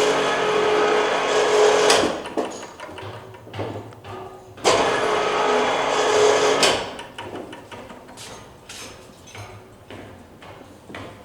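A small power tool runs in two bursts of about two seconds each, then scattered knocks of tools on wood during the dismantling of a wooden float.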